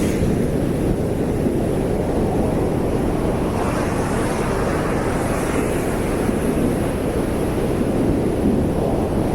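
Atlantic Ocean surf roaring steadily on the beach, swelling as a wave breaks about four seconds in.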